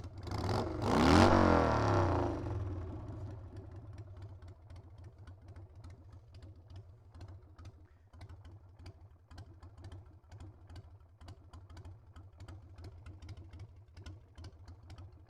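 Harley-Davidson Sportster V-twin engine revved once briefly, rising and falling, then idling with a quick steady pulse, running again on its carburetor after a stuck float needle was freed.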